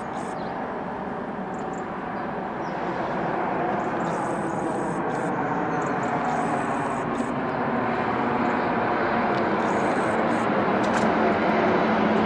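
Bombardier Global 6000 business jet on approach, its twin turbofans making a steady rushing noise with a faint whine in it, growing gradually louder as it nears.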